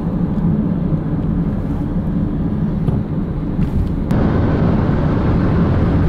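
Steady road and engine drone inside a car cruising at highway speed, about 150 km/h, a low rumble with rushing noise over it. The rushing noise gets louder about four seconds in.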